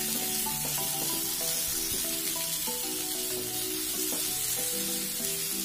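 Boiled potatoes, peas and fried onion sizzling in hot oil in a nonstick frying pan while a spatula stirs and mashes them, under background music of held notes.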